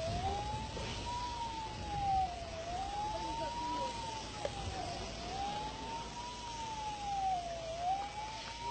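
A siren wailing slowly, its pitch rising and falling about every two and a half seconds, over a low background rush.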